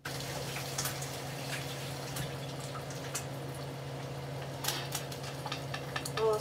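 Bacon and eggs frying in two pans, a steady sizzle of bubbling grease with frequent sharp crackles and pops, over a low steady hum.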